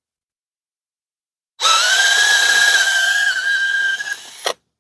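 Cordless DeWalt drill drilling out the rivet that holds a winch relay pack: it starts about a second and a half in with a steady high whine that rises slightly as it spins up. It eases off and stops with a short sharp sound near the end.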